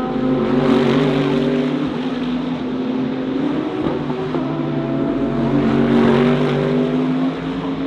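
GT3 race cars running at speed on the circuit, their engines held at a steady high note, with cars passing by about a second in and again around six seconds in.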